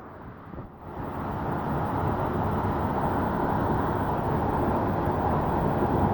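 Steady low rumbling noise, quiet for about the first second and then rising to a constant level.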